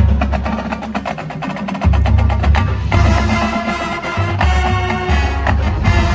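Marching band playing: fast, even percussion strikes over deep held bass notes, with a sustained wind chord coming in about three seconds in.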